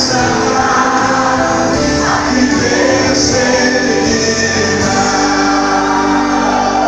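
Live gospel worship music: a man sings into a microphone over amplified backing, with many voices singing along.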